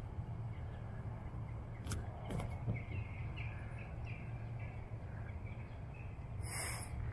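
Outdoor ambience: a steady low rumble, with a few short, faint bird chirps in the middle, a couple of sharp clicks about two seconds in, and a brief rustle near the end.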